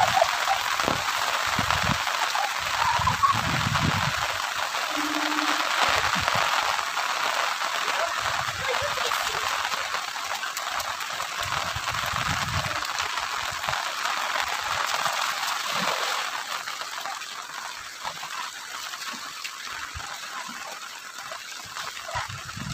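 Steady heavy rain falling, easing a little in the last few seconds.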